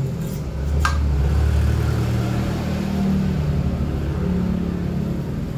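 An engine running with a low rumble whose pitch drifts up and down slightly. A single sharp click sounds about a second in.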